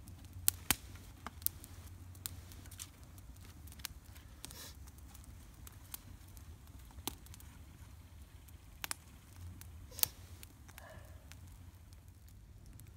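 Small twig-and-grass campfire crackling: sparse, irregular sharp pops and snaps, with a little rustling of dry twigs being handled and laid on.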